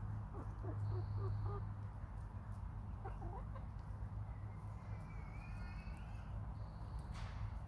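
Hens clucking softly: a run of short low clucks in the first couple of seconds and a couple more around three seconds in, over a steady low hum.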